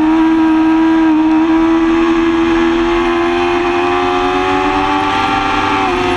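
2005 Yamaha R6's 600 cc inline-four engine running at high revs under load, its pitch climbing slowly as the bike accelerates, with a brief small dip in pitch near the end.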